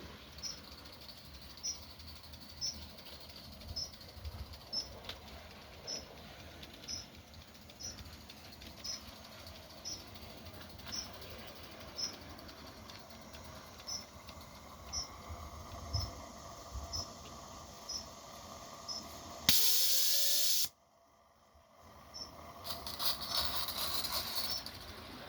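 A gauge 3 model train running on garden track, its wheels ticking over the rail joints about once a second. About three-quarters of the way through there is a loud hiss of about a second that cuts off suddenly, and hissing builds up again near the end.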